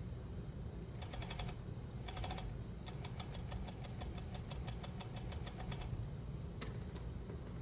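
Industrial sewing machine stitching a seam in short bursts: the needle ticks evenly several times a second, in two brief runs and then a longer run of a few seconds, over a steady low hum.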